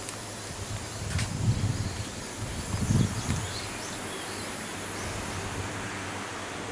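Rural outdoor ambience: a steady hiss with faint bird chirps near the middle, and low rumbles on the microphone about one and a half and three seconds in.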